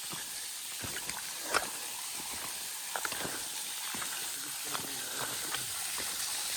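Steady hiss of rushing water, with a few light scattered clicks and knocks, the sharpest about a second and a half in.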